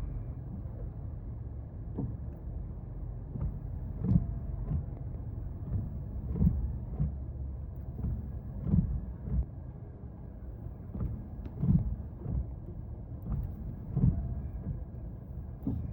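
Mazda 3 driving: a steady low road and engine rumble with soft, irregular thumps about every second.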